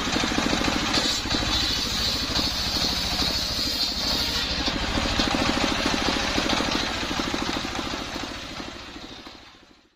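Large belt-driven circular saw ripping sengon (albasia) boards, the blade cutting through the wood for the first four seconds or so, over the steady pulsing run of the stationary engine that drives it. The sound fades out near the end.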